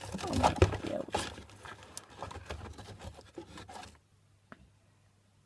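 Someone rummaging through things while searching: rustling, scraping and light knocks that stop about four seconds in.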